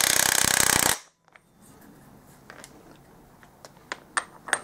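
Impact wrench hammering a flywheel nut tight in a rapid rattle that stops about a second in. A few light metallic clinks follow.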